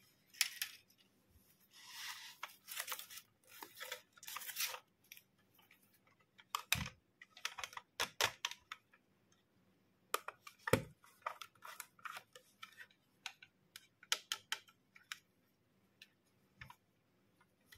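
A white foam mesh sleeve being pulled off a small plastic toy camera, rustling and crackling, followed by plastic taps and clicks as the toy is handled. Two heavier knocks come about seven and eleven seconds in.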